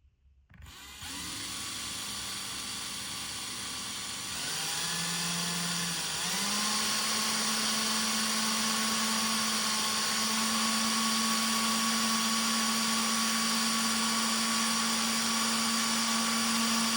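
Small electric drill with a 1/16-inch bit drilling slowly through a plastic part. The motor starts about a second in, steps up in speed twice, then runs at a steady pitch.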